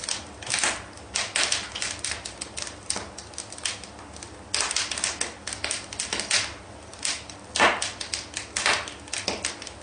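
Bricklaying work sounds: a trowel tapping and scraping on brick and mortar in quick, irregular strokes.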